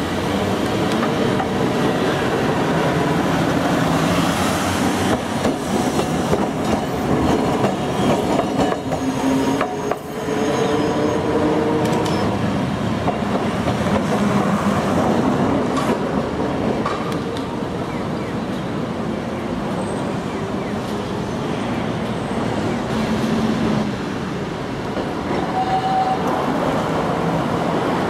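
Iyo Railway streetcars running on street track: a tram pulling away with its motor and steel wheels sounding on the rails, mixed with road traffic. The sound changes briefly about ten seconds in, and tram and car noise carry on after that.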